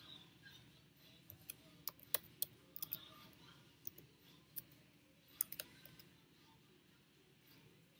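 Sharp, irregular clicks and taps, about a dozen, bunched between about one and six seconds in, from hands handling the recording camera. A faint low hum sits underneath.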